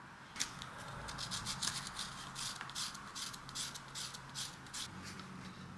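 Hand sanding with sandpaper: quick back-and-forth rubbing strokes, about three or four a second, that stop shortly before the end.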